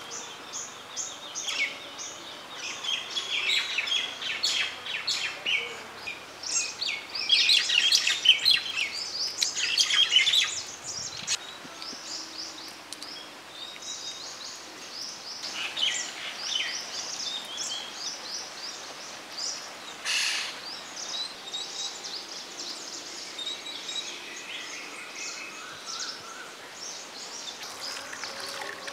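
Small birds chirping and singing in quick high trills, busiest and loudest in the first ten seconds or so, then sparser.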